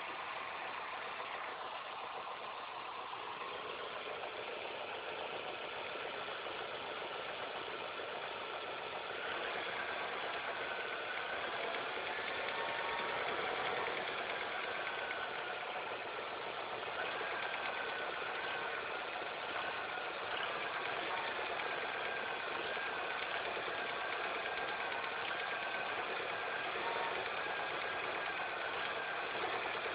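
Daewoo SOHC car engine idling with a steady mechanical clatter. From about a third of the way in, a wavering high whine rides on top of it. This is the annoying noise that remains after all the belts, the timing belt and the tensioner were replaced.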